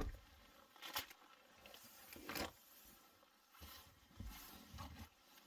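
Faint handling noises in a car cabin: one sharp knock right at the start, then a few soft clicks and rustles of clothing and objects being moved.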